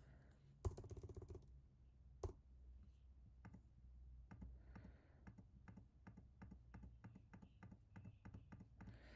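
Faint clicking and tapping of a computer keyboard and mouse while editing: two louder clicks in the first few seconds, then a run of light, quick clicks.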